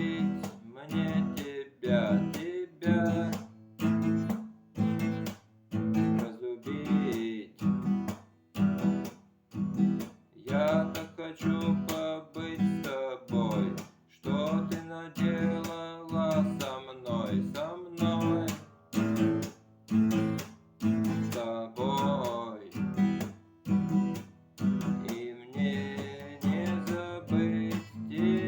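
Acoustic guitar strummed in a choppy, steady rhythm, with a loud stroke about once a second and sharp stops in between.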